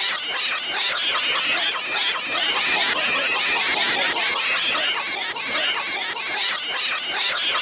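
Many overlapping copies of one young woman's voice stacked into a dense, high-pitched jumble of laughter-like vocal sounds, with music underneath, starting abruptly and running without a break.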